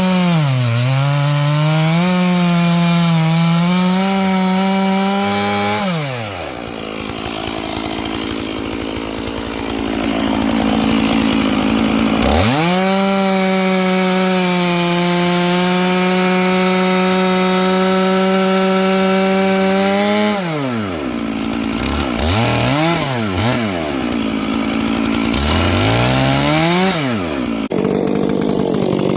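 A 70cc-class chainsaw with a 32-inch bar runs at full throttle, its pitch dipping slightly under load, then drops to idle about six seconds in. It revs back up to full throttle about twelve seconds in and holds there for about eight seconds, then falls off and is blipped up and down a few times.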